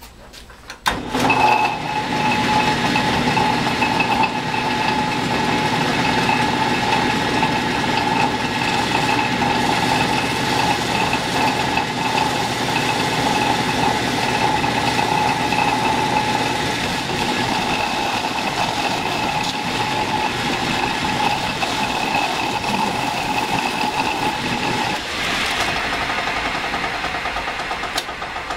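Metal lathe starting up about a second in and running steadily with a constant whine while turning down the outside diameter of a workpiece. Near the end the whine stops and the sound drops and changes as the machine winds down.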